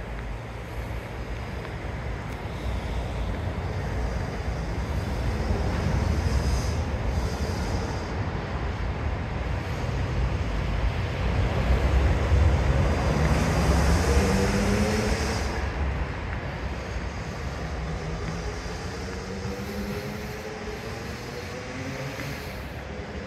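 Street traffic: a steady rumble of passing vehicles that swells to its loudest around the middle, with engine notes rising in pitch around the middle and again near the end.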